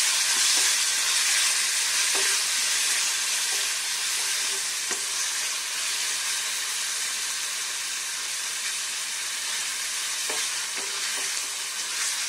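Diced onion, tomato and peas frying in hot oil in a kadai: a steady sizzle, with a few soft knocks of a wooden spatula stirring against the pan.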